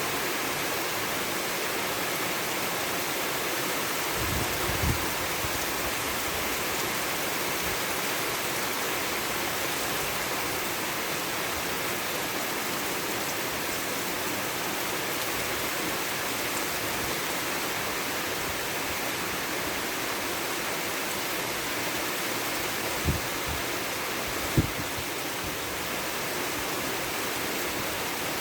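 Steady rain falling as an even hiss, with a few short low thumps: one about four seconds in and two close together near the end, the second the loudest.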